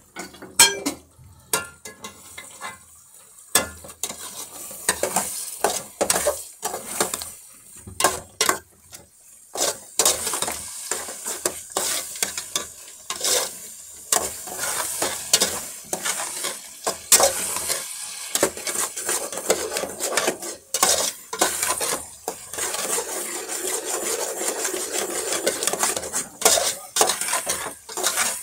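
Pork frying in a pan while a metal utensil stirs and scrapes it, with frequent sharp clinks of the utensil against the pan. The sizzle becomes a steady hiss in the second half.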